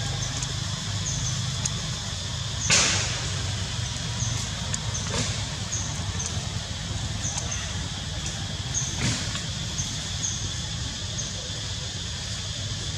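Forest background: a steady high hum with a short high chirp repeating about once a second over a low rumble. A few brief rustling noises break in, the loudest about three seconds in, others near five and nine seconds.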